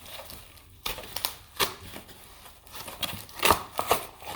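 Packaging being torn and crinkled open by hand, without scissors: a run of irregular rips and crackles, the loudest about three and a half seconds in.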